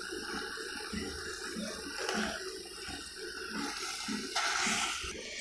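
Wooden spatula stirring and tossing boiled spaghetti through a wet chicken-tomato masala in a metal pot: soft wet squelching and sizzling, with a louder hiss lasting about a second near the end.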